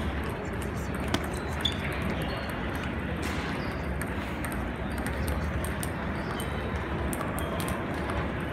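Table tennis balls clicking off paddles and tables, with two sharp hits about a second in and half a second apart, over a steady background of many more distant ball clicks in a large hall.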